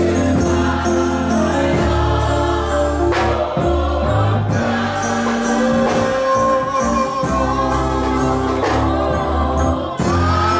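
Gospel music: a choir singing over keyboard and bass accompaniment, held chords and a steady bass line.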